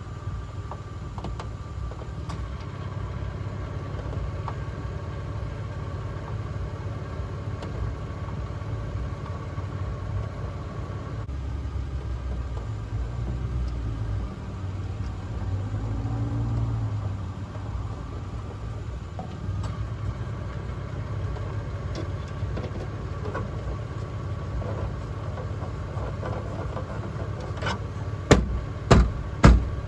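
Dodge Durango engine idling steadily, a low even rumble. Near the end come several sharp knocks in quick succession.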